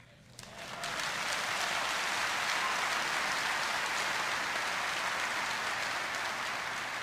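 A large congregation applauding: the clapping swells in within the first second, holds steady, and eases off slightly near the end.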